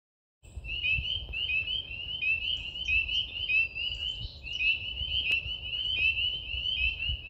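Chorus of frogs calling: many short, high peeping notes overlapping, several a second, starting about half a second in.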